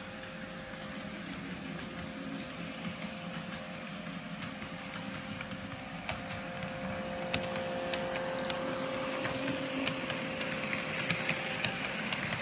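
Mini Models S set double-deck model electric train running on the layout track: a steady motor hum, growing louder as it nears, with its wheels clicking over the rail joints from about halfway on.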